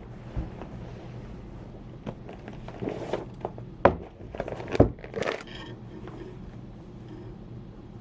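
Scattered knocks and short rustles of things being handled, the loudest two about 4 and 5 seconds in, over a steady low hum.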